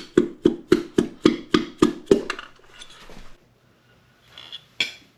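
Dead-blow hammer knocking in a fast, even run of about four blows a second, driving a piston and connecting rod out of a 1931 Ford Model A four-cylinder's bore. The knocking stops a little over two seconds in, and there is one more knock near the end.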